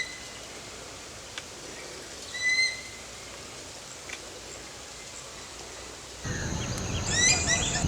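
Bird calls: two short clear whistled notes a couple of seconds apart over quiet background. About six seconds in, a louder outdoor background noise comes in abruptly, with a quick series of short chirps near the end.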